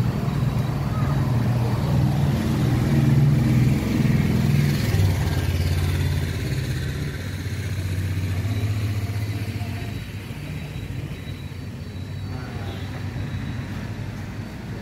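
Mahindra Bolero's diesel engine idling with a steady low drone. Its pitch drops a little about five seconds in, and it grows quieter after about ten seconds.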